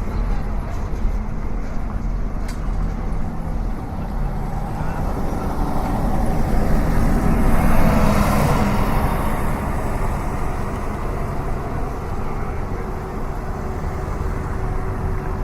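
City street traffic: a steady rumble of cars and heavier vehicles, with one vehicle passing closer about halfway through, its noise swelling and then fading.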